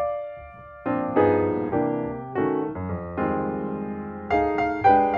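Background piano music, soft notes and chords struck one after another, with a short pause about a second in.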